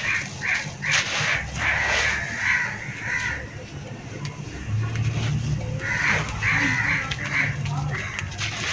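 Dry, dusty soil clumps crushed by hand, with grit and dust pouring and crunching onto a loose dust pile, mostly in the first couple of seconds. Over it a bird calls again and again, in two runs: one in the first three seconds and another from about six to eight seconds in.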